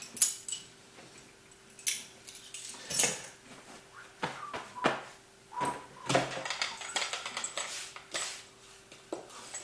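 A cardboard package being handled and turned over: scattered taps, knocks and short scraping rustles.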